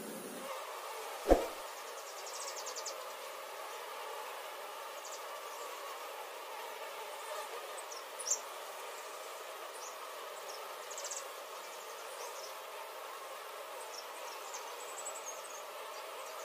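Steady buzzing of an opened colony of Asian honey bees (Apis cerana) swarming over their combs. A single sharp knock comes about a second in, and a fainter click comes near the middle.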